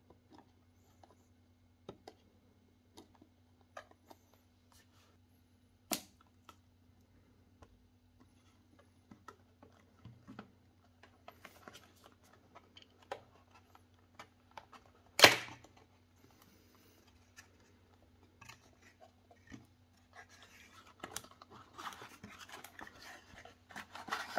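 Webcam packaging being opened and handled: scattered light clicks and taps, one loud sharp snap about fifteen seconds in, and a stretch of rustling and tearing near the end.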